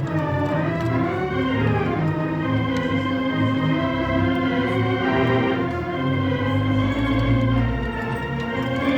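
Wurlitzer theatre pipe organ playing sustained chords over a moving bass line.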